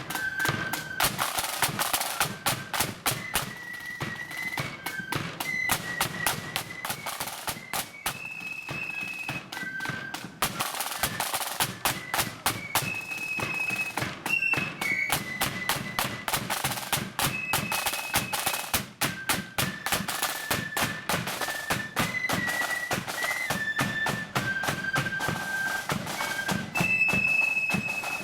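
Marching flute band playing a high, piercing tune over rapid snare drumming and bass drum beats.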